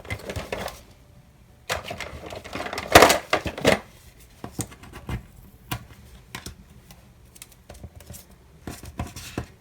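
Washi tape being worked by hand on a paper planner page: a dense run of rustling and crinkling about two to four seconds in, then scattered light clicks and taps.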